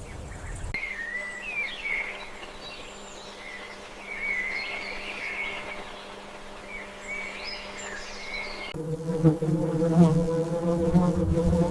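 Small birds calling with quick, wavering chirps and trills over a faint steady hum. About nine seconds in, the sound changes to a louder steady drone with several stacked tones.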